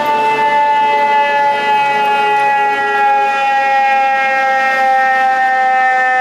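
Fire engine siren sounding as the apparatus responds: one long wailing tone that falls slowly and steadily in pitch.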